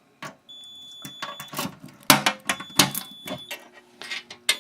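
Fire-Lite MS-5024 fire alarm panel's trouble sounder beeping: a high steady tone about one second on, one second off, signalling the panel's active troubles (open zones 1 and 2, no battery). Sharp clicks and knocks come with it as the lock and door are handled, the loudest two a little past the middle.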